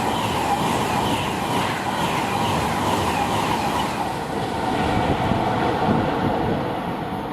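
Freight train wagons passing at speed, wheels rumbling on the rails with a regular repeating clatter for the first few seconds.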